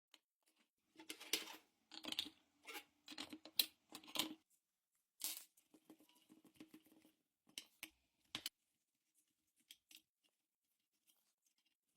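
A series of short, irregular scraping and clicking sounds of hand work on small parts, frequent for the first few seconds and then sparser.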